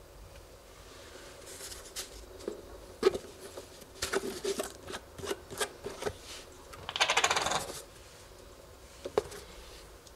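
Plastic screw cap on a quart motor-oil bottle being handled and twisted open: scattered clicks and taps, then a rapid run of ratcheting clicks lasting under a second about seven seconds in as the cap breaks free of its seal ring, and a last click or two near the end.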